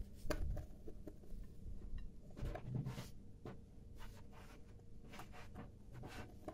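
A spoon stirring thick cocoa cake batter in a glass bowl, with irregular soft scrapes and clicks of the spoon against the glass.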